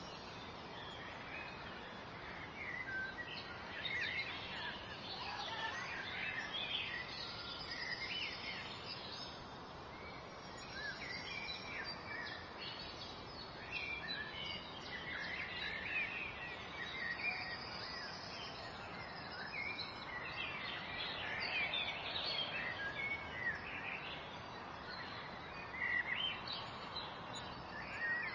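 Many small birds chirping, short overlapping calls all the way through, over a steady background hiss.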